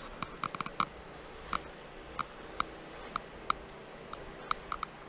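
Footsteps crunching in fresh snow: a string of short, sharp crunches, irregular at roughly one or two a second, with a quick cluster near the start.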